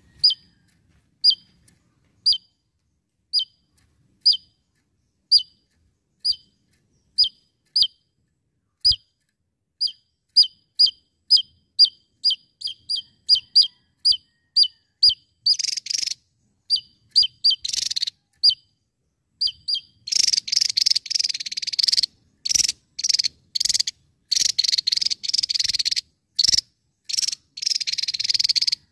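Javan tesia calling. Sharp single notes come about once a second, speed up to two or three a second from about ten seconds in, then from about sixteen seconds break into long, fast, buzzy trills that run almost without a break near the end.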